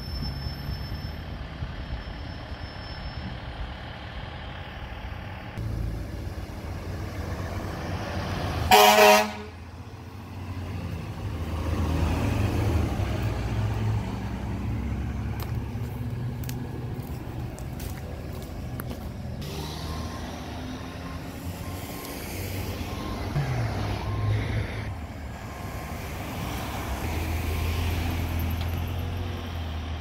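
Fire engine's diesel engine running as it drives by, with one short, loud horn blast about nine seconds in.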